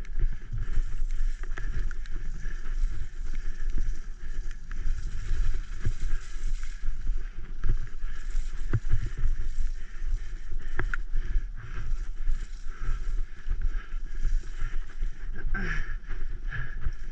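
Graziella folding city bike rattling and rumbling as it rides fast down a wet, muddy dirt trail, with frequent knocks from the bumps and wind on the microphone.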